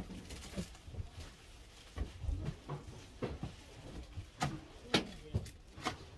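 Scattered light knocks and clicks of small items being handled and moved on a shop shelf, with a few sharper clicks in the second half.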